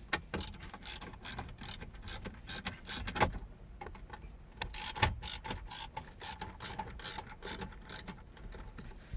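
Ratcheting Phillips screwdriver clicking irregularly as a screw is worked out, with a couple of sharper knocks about three and five seconds in.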